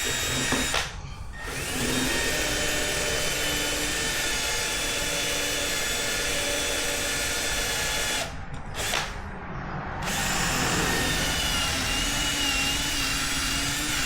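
Electric drill boring a pilot hole into a rivet on a Yamaha R1 clutch basket, one of the rivets that hold the primary gear and damper springs. The drill runs steadily, stops briefly about eight seconds in, then runs again.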